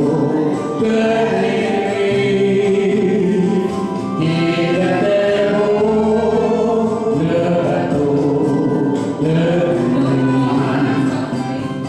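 Man singing into a handheld microphone over a karaoke backing track.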